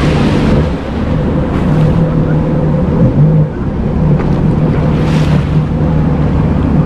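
Jet ski engine running with a steady low note, with wind noise on the microphone.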